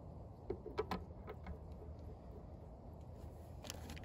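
A few light clicks and taps as check-valve plugs are handled and set into the valve ports of a CAT pressure washer pump head: a quick cluster of about five about a second in and one more near the end, over a low steady rumble.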